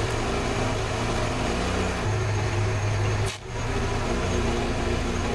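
AHP TIG welder tacking steel tubing: a steady electric hum and hiss while the arc burns, with a brief sudden drop a little over three seconds in.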